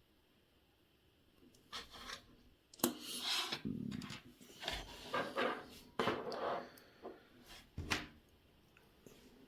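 Hand work at a watchmaker's bench: a run of short rubbing and scraping noises with a few sharp taps or clicks among them, starting after a second and a half and stopping about a second before the end.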